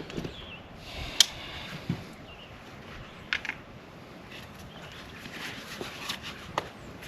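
Scattered light clicks and knocks of tools and parts being handled as a guard is taken off a sawmill's blade housing, the sharpest about a second in, with a few more spread through the rest.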